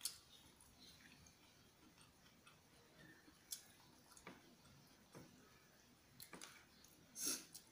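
Quiet eating sounds: a metal fork clicking and scraping in a plastic bowl of pancit noodles, with faint chewing. A few scattered short clicks, and a slightly louder one near the end.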